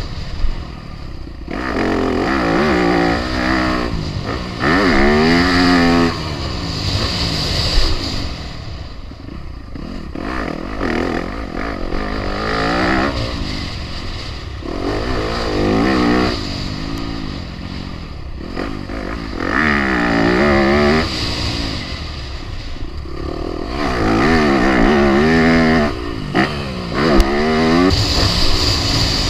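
Four-stroke motocross dirt bike engines revving hard and backing off over and over, the pitch climbing through the gears and dropping every few seconds.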